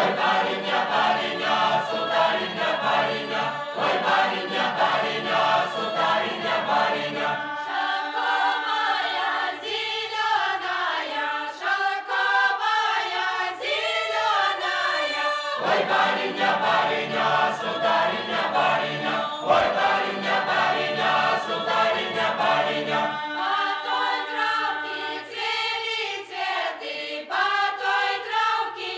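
A Doukhobor choir singing a Russian folk song, several voices together in long held notes with no instruments.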